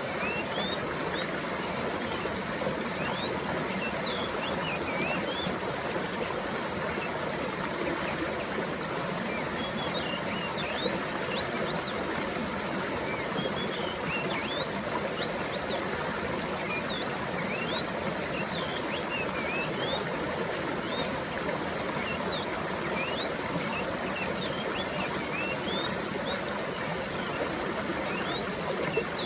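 Mountain stream flowing steadily, with many short, high chirps of small birds calling over the water.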